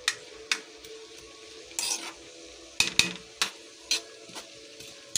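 Spatula scraping and knocking against a pan as button mushrooms, garlic, onions and chilies are stirred while they sauté, in irregular strokes about every half second.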